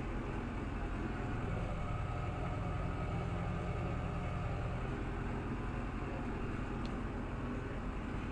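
Tractor engine running steadily at an even pitch while driving a Samasz P6-771 rotary tedder through cut grass.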